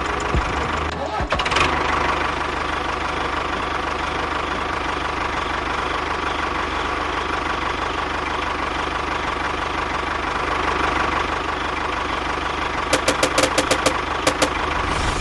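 Small motor running steadily with an even hum and a thin whine. Near the end there is a quick series of sharp clicks.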